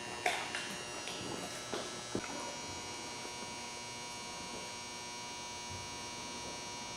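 Steady electrical hum made of many fixed tones, with a few faint knocks in the first couple of seconds.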